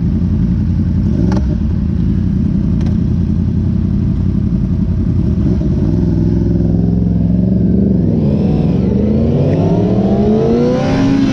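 Honda sportbike engine idling steadily, then revving and rising in pitch as the bike pulls away and accelerates, heard close up from the bike itself.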